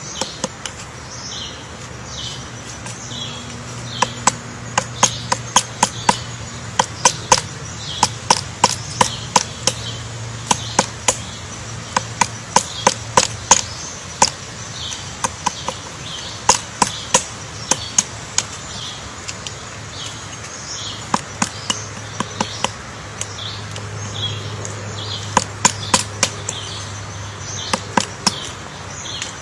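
Woodpecker pecking at wood: irregular runs of sharp taps, several a second, with short pauses between runs. Short high calls repeat behind the tapping, and a faint low hum comes and goes.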